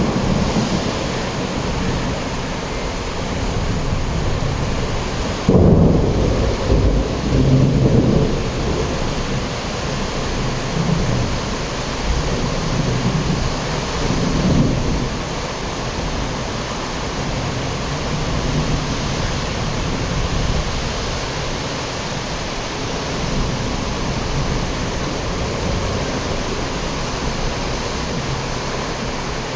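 Steady rain falling. A low rumble starts suddenly about five seconds in and lasts a few seconds, with a shorter one near fifteen seconds.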